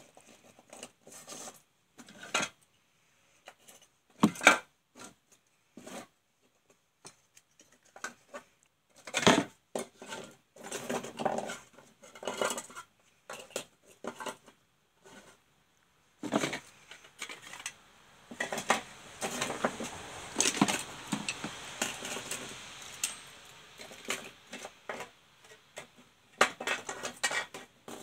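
Hard plastic and metal parts of dismantled electrical switchgear and circuit boards being handled on a workbench: irregular clicks, knocks and clatter, with a stretch of steadier rustling and scraping through the second half.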